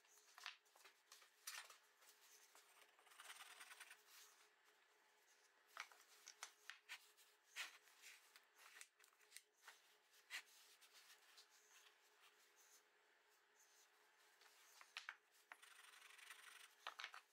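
Very faint rubbing and rustling with scattered small clicks: hands spreading and smoothing oil-bonded foundry sand (Petrobond) in a molding flask.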